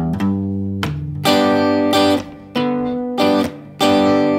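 Guitar played: a low single note rings out at the end of a single-note riff, then chords are strummed three times, a little over a second apart, each left to ring briefly.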